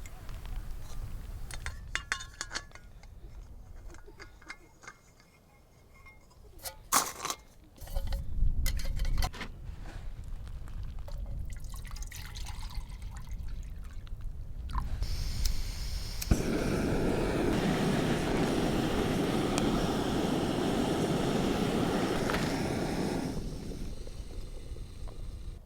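Water being poured in a steady stream for about seven seconds, cutting off sharply, after a stretch of scattered clicks and knocks from handling gear.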